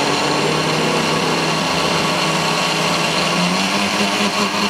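Countertop jug blender running at its lowest speed, puréeing hot broccoli and spinach soup, a steady motor whir. Its pitch steps up about three and a half seconds in.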